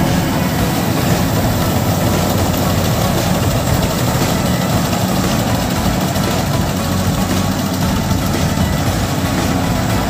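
Bimo Extreme rice combine harvester running steadily while it cuts and threshes rice: a constant low engine hum under a dense mechanical rattle.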